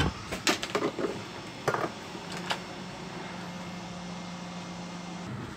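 A few light clicks of metal tools being handled and set down, then the steady hum of a hot-air rework station's fan, which cuts off about five seconds in.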